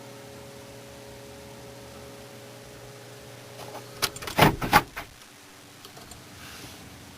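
A cluster of sharp clicks and clunks about four seconds in, typical of a van's power door locks actuating, after a steady low hum that fades out just before them.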